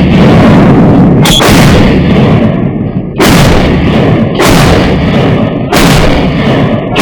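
A firearm firing single shots at a slow, fairly steady pace, about five in a row one to two seconds apart. Each shot is very loud and trails off into a long echo.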